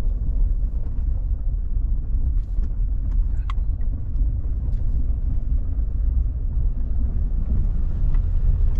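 Pickup truck cab while driving: a steady low rumble of engine and road noise, with the truck towing a heavy trailer-mounted lagoon pump. A small click about three and a half seconds in.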